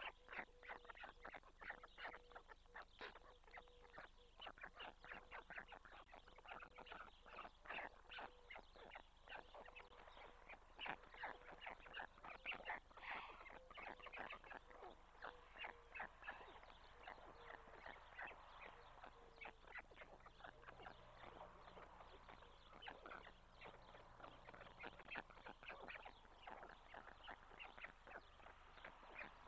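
Faint chorus of white stork chicks begging, a dense, irregular run of short calls as the adult gives them water in the nest.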